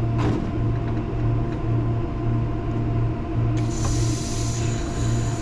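Compressed nitrogen hissing out of an air conditioner's opened refrigerant lines during a purge. The hiss starts suddenly about three and a half seconds in, over a steady low machine hum that swells and fades about one and a half times a second.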